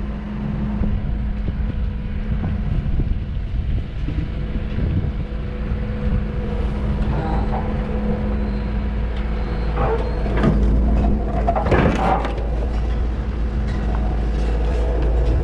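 Engine running steadily while a scrap car is moved up onto a flatbed trailer, with a burst of clunks and scraping about ten to twelve seconds in.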